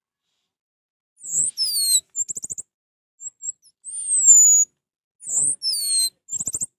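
Orange-headed thrush singing: a string of high, clear whistled phrases with falling glides and quick rattling trills, broken by short pauses.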